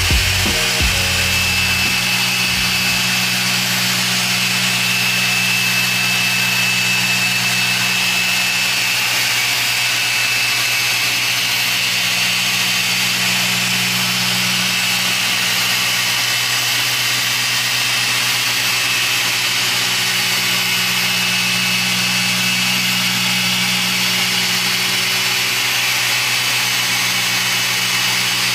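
Machine polisher running steadily on car paint while polishing a test spot.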